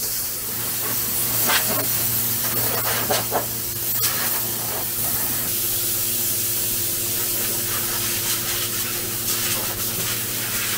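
Compressed-air blow gun hissing steadily as it blows decades of dust and dirt out of a vehicle's dashboard wiring, with a few brief surges as the nozzle is moved.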